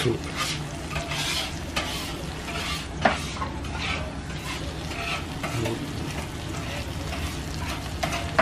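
Sauce yakisoba topped with a fried egg sizzling on a hot iron griddle, with short repeated strokes about two a second and one sharp knock about three seconds in.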